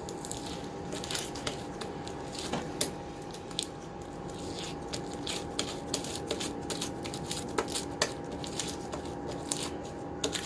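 A large mass of mixed slime being squeezed and kneaded by hand, giving irregular wet clicks and small pops.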